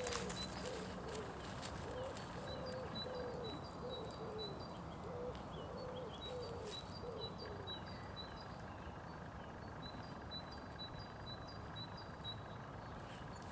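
Small birds calling with short, high, repeated chirps, over a steady outdoor background. A run of lower, wavering calls, about two a second, goes with them through the first half and then stops.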